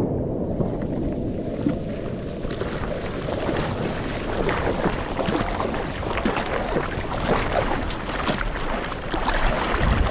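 Water sloshing and splashing around a surfboard as it is hand-paddled through whitewater, heard from a camera on the board's nose. It starts as a low rush of water, then about two seconds in turns to close, irregular splashes and fizzing foam.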